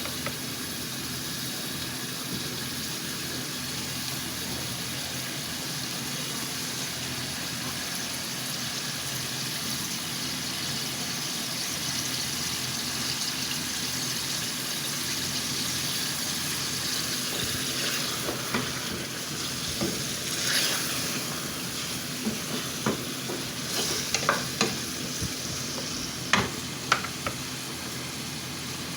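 Marinated chicken pieces sizzling steadily in hot oil over a high flame. From about 18 seconds in, a few short clicks and scrapes, clustered near the end, break through the sizzle.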